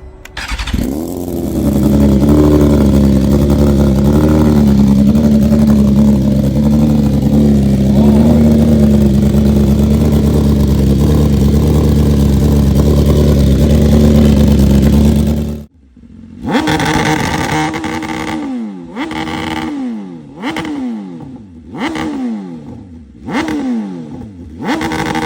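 2024 BMW S1000RR's inline-four engine through an Akrapovič GP slip-on exhaust, running loud and steady for about fifteen seconds. After a sudden break it is revved in a series of about seven quick throttle blips, each rising sharply and falling back.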